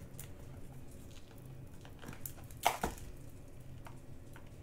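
Faint clicks and handling noises of small plastic drill containers and a printed label being fitted on, with one louder tap a little under three seconds in.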